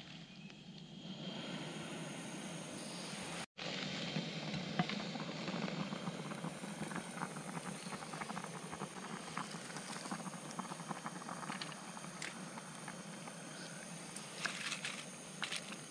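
Portable butane gas stove burner hissing steadily under a pot of soup boiling, with a patter of small bubbling pops and ticks. The sound cuts out for an instant about three and a half seconds in.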